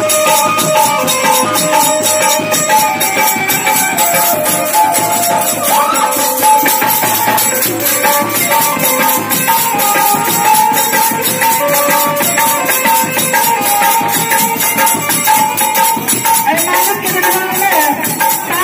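Live folk music: a harmonium plays a melody of held reed notes over a fast, steady jingling percussion rhythm and a hand drum.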